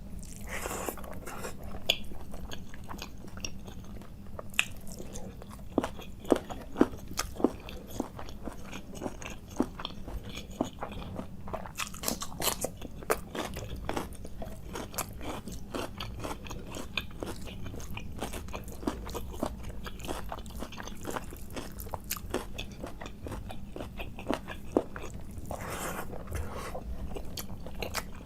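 Close-miked chewing: wet mouth clicks and smacks with crunching bites of food, many short sharp sounds in an irregular run. A steady low hum sits underneath.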